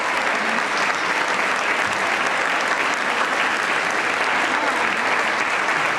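A crowd applauding steadily, with voices mixed in.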